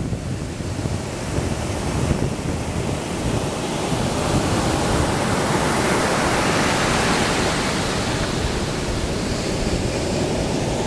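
Ocean surf breaking and washing up a sand beach: a steady rush of waves that swells louder about midway. Wind rumbles on the microphone throughout.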